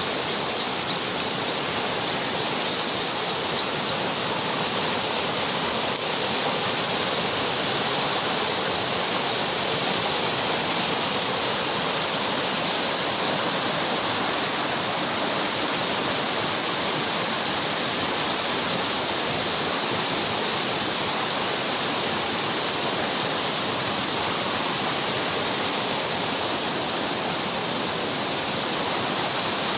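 Steady rushing of flash-flood water flowing fast after a typhoon's heavy rain, an even, unbroken noise.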